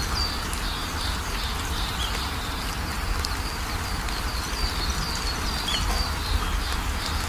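Nature-sound backing track: small birds chirping in short, repeated high calls over a steady hiss and a low rumble.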